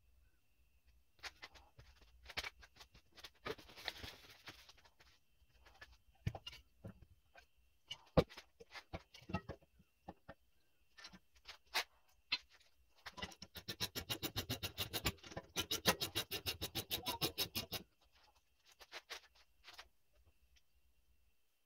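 Scattered metal clinks and knocks as a car's rear brake caliper is handled and fitted over the rotor. Then comes about five seconds of rapid, even ratchet clicking, a hand ratchet wrench turning the caliper bolts, followed by a few last clicks.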